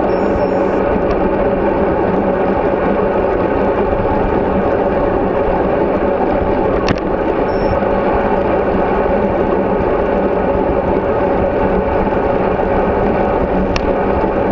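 Steady rush of wind and road noise picked up by a GoPro Hero3 on a moving bicycle, with a brief click about seven seconds in and another near the end.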